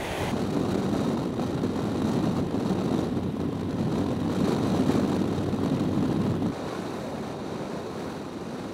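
Honda Gold Wing motorcycle running at road speed, a steady engine hum under wind and road rush. About six and a half seconds in, the low hum drops away suddenly, leaving quieter wind and tyre noise that fades.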